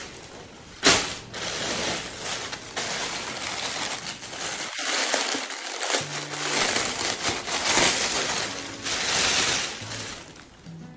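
Plastic clothing packaging bags rustling and crinkling as shirts are handled and pulled out, with one sharp crackle about a second in.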